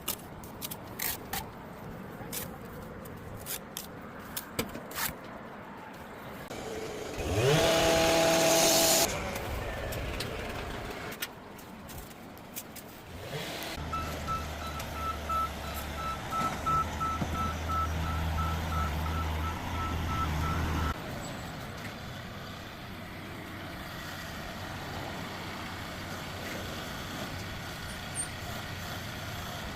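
A construction machine's engine runs while its reversing alarm beeps at about two beeps a second for some seconds, then both cut off together. Before that, there are scattered clicks and knocks, and then a loud whine of about two seconds that rises in pitch and settles into a steady tone.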